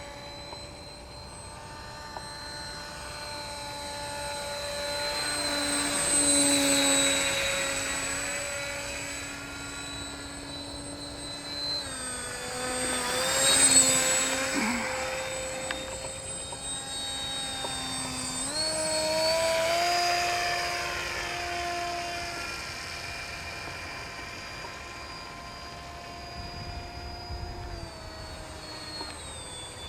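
RC autogyro flying, its motor and propeller giving a steady whine that grows louder three times as it passes close by. The pitch steps up when throttled up about two-thirds of the way through, and drops back near the end.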